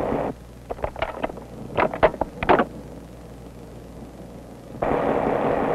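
Diesel switcher locomotive engine running; after a moment its sound drops to a low hum while about eight to ten sharp metallic knocks come over the next two seconds. The steady engine sound comes back about five seconds in.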